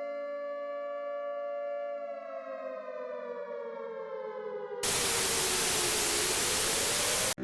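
Siren sounding a steady two-note tone that starts sliding down in pitch about two seconds in, like a siren winding down. About five seconds in, loud static hiss comes in over it. Both cut off abruptly at the end.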